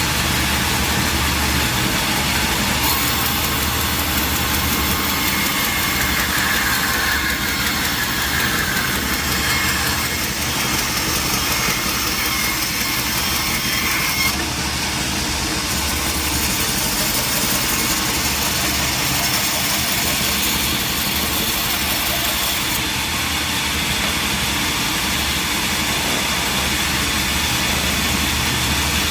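Sawmill machinery running steadily, an engine-like drone with a constant noisy hiss; a faint rising whine comes through for a few seconds about six seconds in.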